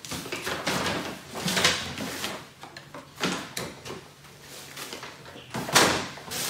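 Rustling and bumping of things being handled and moved, with louder knocks about one and a half seconds in and again near the end.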